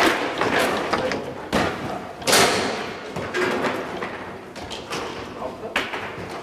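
Foosball being played: sharp clacks and thuds as the ball is struck by the plastic figures and knocks against the table walls and rods. There are several hits, the loudest a little over two seconds in, with the echo of a large hall behind them.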